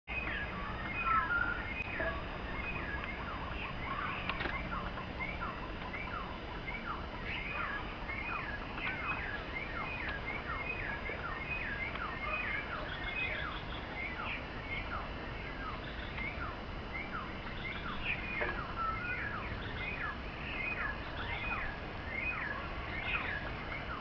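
Many birds chirping without pause, a dense run of short, quick calls that overlap one another, over a low steady rumble.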